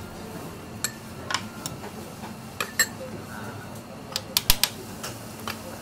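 Metal utensils and dishes clinking and tapping at a teppanyaki griddle in short, scattered knocks, with a quick cluster of sharp clinks about four seconds in.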